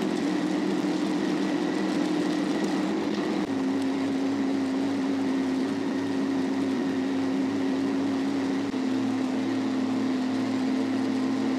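Kubota ZD1011 zero-turn mower's 19-horsepower diesel engine running at a steady drone while its deck cuts tall, thick grass, heard close from the rider's seat. The tone shifts abruptly twice, at about three and a half seconds and again near nine seconds.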